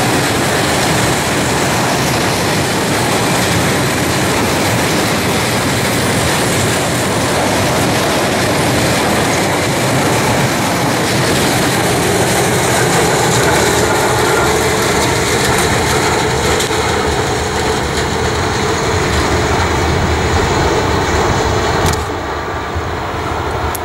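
A freight train of butane (LPG) tank wagons rolling past at close range, giving a steady, loud noise of wheels running on the rails. Near the end the sound drops suddenly to a quieter, duller level.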